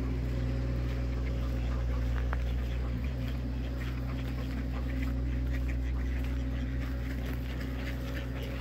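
A steady low mechanical hum, like an engine running, with ducks quacking faintly over it.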